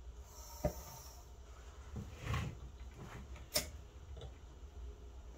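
Two sharp clicks about three seconds apart, with a short rustle between them, from hands working a propane bottle and burner at the firebox of a model hot air engine while lighting it.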